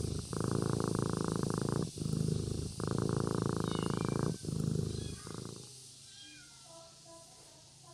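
Kitten purring while asleep, a loud rattling purr broken by short gaps between breaths, stopping about five and a half seconds in.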